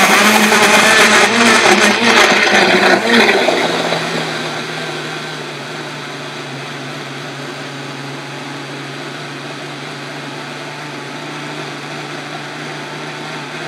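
Countertop blender running on a batter of eggs, ripe bananas, oil and sugar. It is loud and uneven for the first few seconds while the banana chunks break up, then settles into a steadier, quieter whir as the batter turns smooth.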